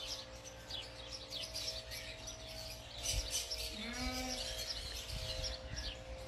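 Small birds chirping repeatedly in the background. About four seconds in, one short animal call of about half a second, rising slightly in pitch, like a brief whine or bleat.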